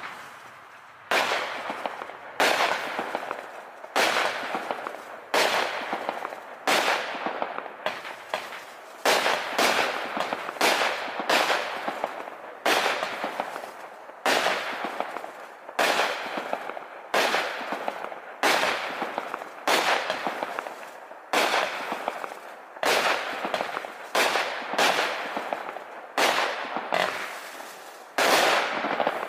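A 25-shot, 200-gram firework cake with 0.9-inch tubes fires shot after shot, about one a second. Each shot starts sharply and fades over about a second before the next.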